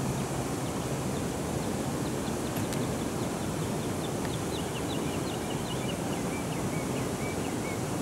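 A steady rushing background noise throughout, with many short, high bird chirps and twitters over it that grow busier in the second half.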